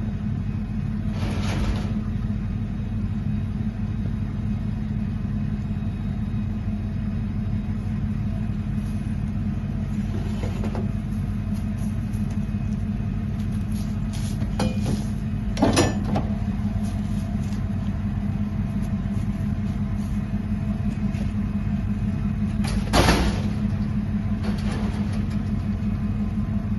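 Truck driving, its engine and road noise making a steady low drone, with a few brief knocks or rattles, the loudest about 23 seconds in.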